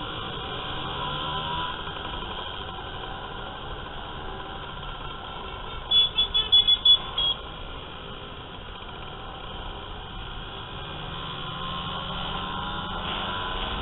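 Motor scooter engines running steadily with road and wind noise, heard from a rider's helmet. About six seconds in, a quick run of about six high-pitched electronic beeps.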